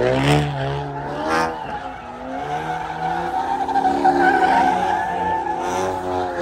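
Tires squealing continuously as cars spin donuts, with engines revving up and down underneath.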